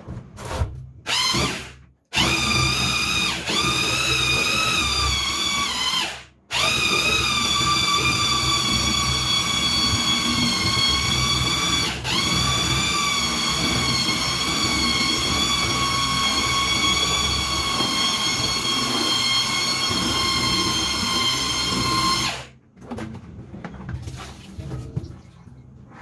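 Electric mixer motor running with a steady high whine while it stirs the liquid detergent mix. It starts with a couple of short bursts, stops briefly about six seconds in, then runs steadily with a short dip in pitch near the middle, and cuts off near the end.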